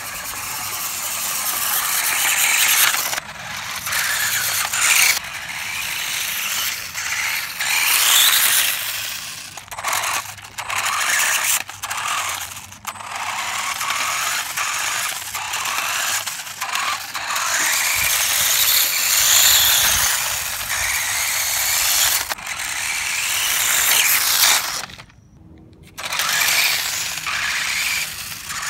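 Brushless RC snowmobile's rear track and gear drive whirring and clattering as it is driven, the noise surging and dropping out again and again with the throttle, with a brief lull near the end.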